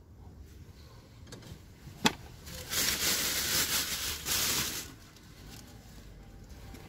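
Plastic bag rustling and crinkling in a gloved hand for about two seconds as rubbish is sorted through, after a single sharp click about two seconds in. Quieter shuffling of clothes and shoes comes before and after.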